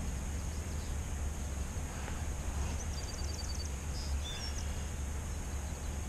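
Outdoor field-edge background: a steady low rumble and hiss with a faint, steady high-pitched tone. A small bird sings a short, quick trill of about seven notes about three seconds in, followed by a few more bird notes a second later.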